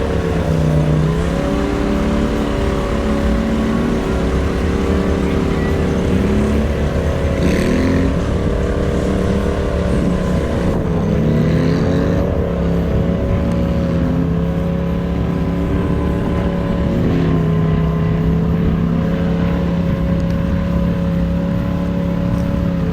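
Polaris RZR Pro XP side-by-side's twin-cylinder engine working through deep mud, its pitch dipping and climbing again and again as the throttle is worked, then holding a steady note over the last several seconds.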